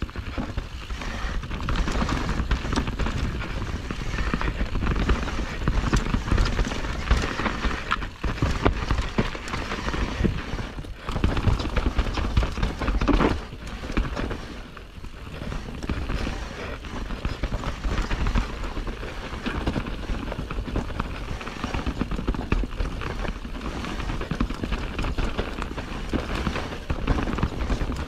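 Enduro mountain bike descending rough singletrack: a continuous rattle and clatter of the bike jolting over the trail, with tyre noise on dirt.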